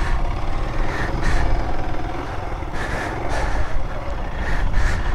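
Motorcycle engine running on a rough sandy track, with a steady low rumble and rushing wind noise on the microphone.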